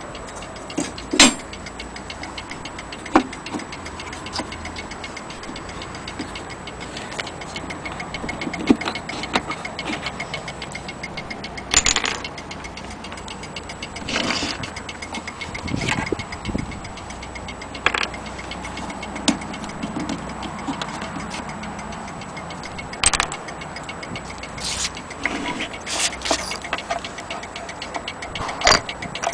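Antique fusee GPO station clock ticking steadily, with several louder knocks and clicks scattered through.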